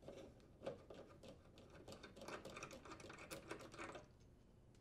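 Faint clicking and scraping of a braided washer inlet hose's metal coupling being unscrewed by hand from the cold water faucet port, stopping near the end.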